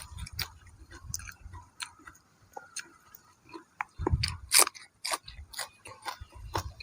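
A person chewing crunchy food close to the microphone: irregular crunches and clicks.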